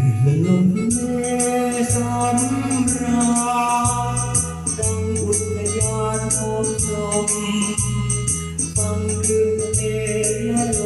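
Instrumental intro of a Thai song: a sustained organ-like melody over a stepping bass line, with a steady high ticking beat from a shaker or hi-hat.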